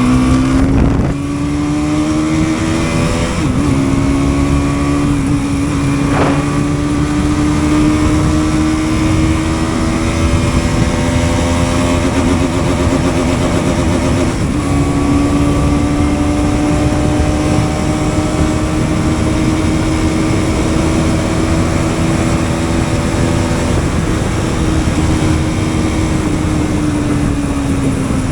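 Bajaj Pulsar NS200's single-cylinder engine pulling hard at full throttle, its note climbing slowly in each gear and dipping briefly three times as gears change, then dropping near the end as the throttle eases. Wind rush sits under the engine.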